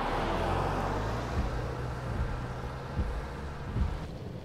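Car driving along a road: a steady low engine hum under road and tyre noise, with a few low thumps. The hiss drops away about four seconds in.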